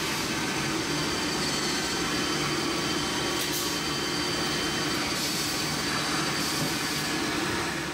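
Steady machine-shop noise: a continuous mechanical whir with a low hum and a faint high whine, fading out near the end.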